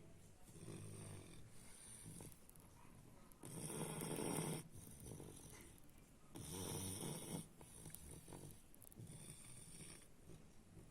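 French bulldog puppy snoring in its sleep: a run of snores, one to each breath, two of them louder and longer about four and seven seconds in.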